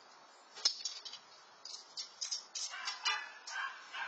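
A cat meowing several times in the second half, begging for food. A sharp click about half a second in and a few more later are a utensil tapping against the food dish.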